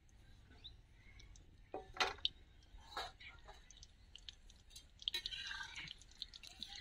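Faint clinks and scrapes of a metal slotted spoon against an iron karahi of frying gulab jamun, a few separate light clicks.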